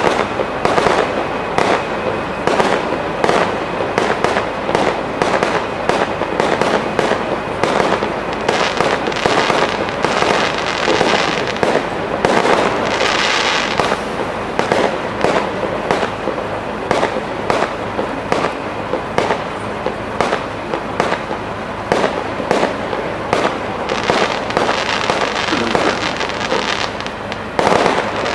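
Aerial firework shells bursting in quick succession, a dense run of bangs and crackling, with stretches of thicker hissing crackle about halfway through and again near the end.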